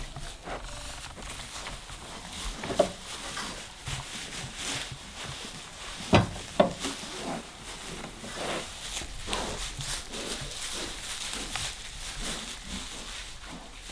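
Pregnant sow moving about her stall, rustling and pulling at straw as she builds a nest, with a few sharper, louder sounds about three and six seconds in. Nesting like this is a sign that farrowing is close.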